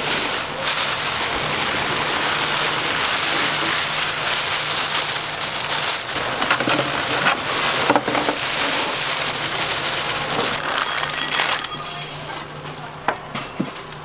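Batter-coated food deep-frying in hot oil: a dense, crackling sizzle like heavy rain, with a few sharp pops. It eases off near the end, leaving scattered crackles.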